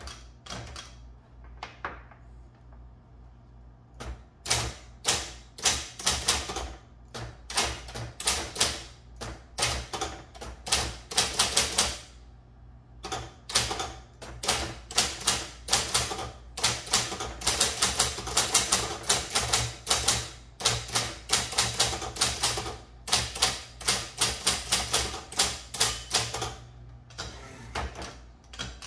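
Royal Apollo 10 electric typewriter being typed on: rapid runs of key strikes starting about four seconds in, with a couple of brief pauses, over a steady low hum.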